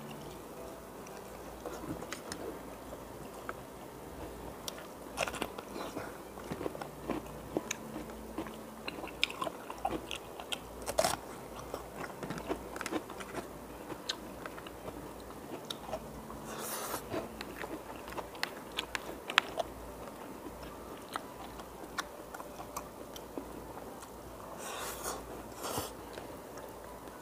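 A person eating close to the microphone: chewing and biting food, with many small, irregular mouth clicks and smacks.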